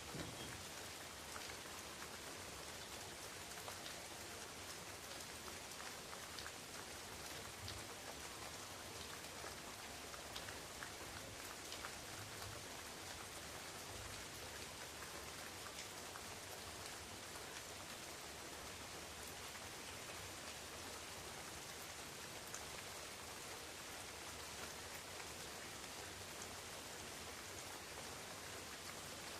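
Steady rain falling on forest leaves, an even hiss with many small drop ticks throughout.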